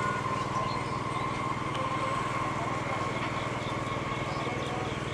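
Indian Railways EMU local train running, its electric traction motors giving a steady hum with a high, even whine.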